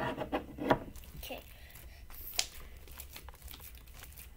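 Handling sounds from slime and plastic: sharp clicks and crinkling as a hand works in a tub of slime, with a short bit of voice in the first second.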